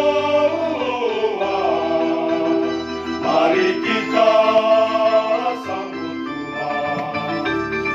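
Men's choir singing a hymn, with sustained notes that change pitch every second or so, accompanied by an electronic keyboard.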